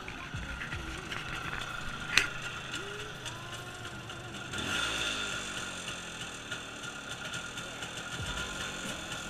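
CZ 175/487's single-cylinder two-stroke engine running at idle with a steady rattle, during a cold start. A sharp click comes about two seconds in.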